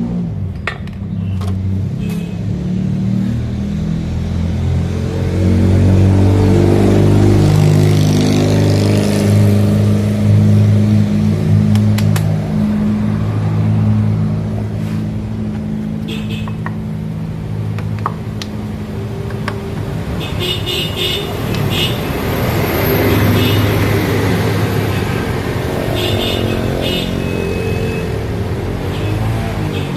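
A motor vehicle engine running, louder between about six and twelve seconds in and easing off after. Repeated clattering high sounds join it in the last third.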